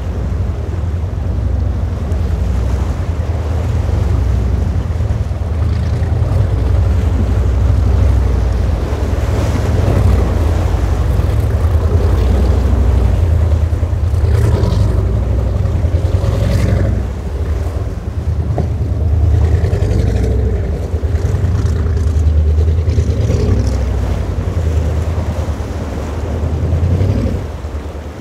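Wind rumbling on the microphone over waves and surf, with powerboat engines running through the rough inlet; an engine note comes through more clearly in the middle.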